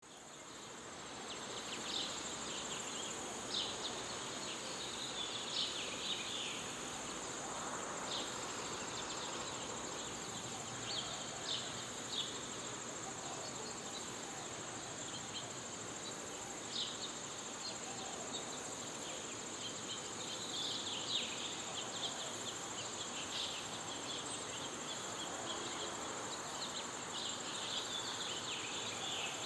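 Outdoor ambience of insects: a steady, high-pitched insect drone, with short chirps breaking in every few seconds.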